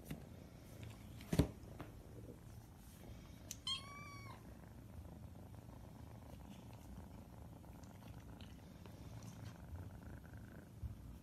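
Feeding kittens purring steadily, with one short high kitten mew about four seconds in. A sharp knock a little over a second in is the loudest sound.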